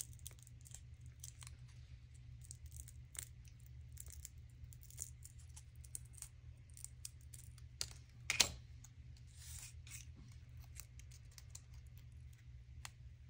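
Small scissors snipping through a round velcro dot, a scattering of small clicks and snips with one louder click about eight seconds in.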